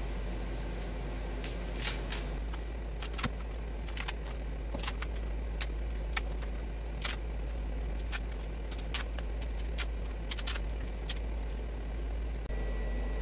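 Irregular sharp clicks and snaps of small Biomed Durable resin 3D-printed parts being peeled by hand off their printed supports and raft, over a steady low hum.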